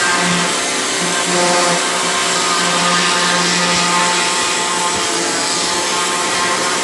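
A motor-driven machine running steadily, with a constant whir and hum.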